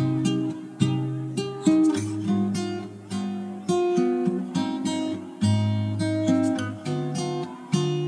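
Background music: a plucked acoustic guitar playing picked notes at an even pace.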